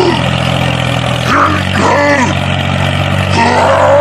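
Steady low engine-like drone of the toy mini tractor pulling its plough through sand; the drone's pitch shifts slightly a little over a second in.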